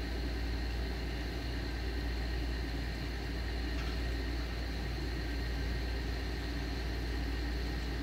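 Steady low rumble with a faint high hum, unchanging throughout.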